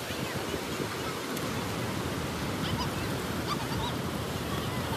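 Ocean surf rushing steadily on the beach, with a few faint short high calls about halfway through.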